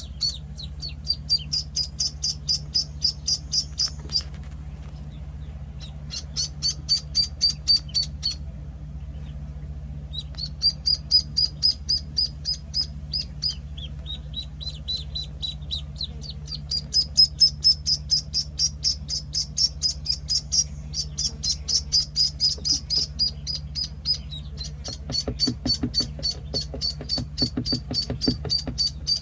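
Week-old penciled Call ducklings peeping: long runs of rapid, high, repeated peeps, several a second, broken by a few short pauses, over a steady low hum.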